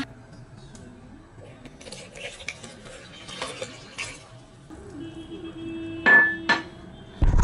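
Dishes and metal utensils clinking and scraping on a kitchen work surface, with two sharper knocks about six seconds in. A louder noise starts right at the end.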